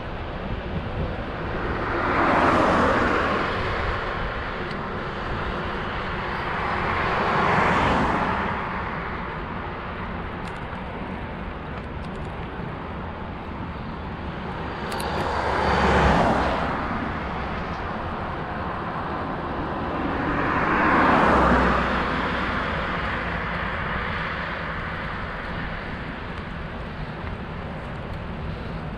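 Four motor vehicles passing one after another on the road, each a whoosh that swells and fades over a couple of seconds, over a steady rush of wind and road noise from riding.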